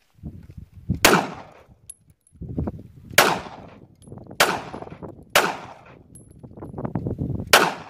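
Five gunshots from a firearm, fired one at a time at uneven intervals, each followed by a short ringing tail.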